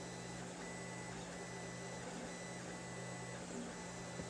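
Lulzbot TAZ 5 3D printer printing: its stepper motors whine at a high pitch that switches on and off with each move of the print head, over a steady low hum.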